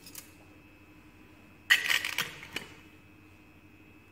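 Glass pipettes clinking and rattling against each other inside a metal pipette canister as one is drawn out, a short clatter about halfway through followed by a few light clicks.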